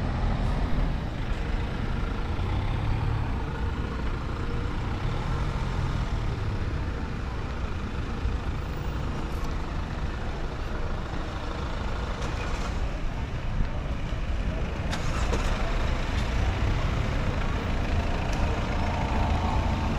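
City street traffic: motor vehicles, among them a heavy vehicle such as a bus or truck, running past as a steady low noise.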